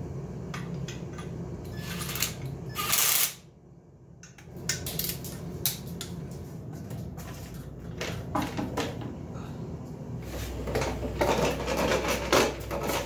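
Metal tool clinks and ratchet clicks on an SR20 engine's clutch and flywheel as the pressure plate bolts are run in, with one short loud burst from a cordless driver about three seconds in. A steady low hum comes in near the end, with knocks from the engine being handled.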